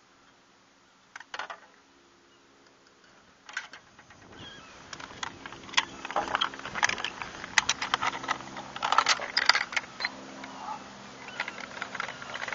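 Light clinks and rattles of gear being handled in a small metal boat: two single clicks early, then a thick run of small metallic rattles from about five seconds in. A low steady hum comes in about four seconds in.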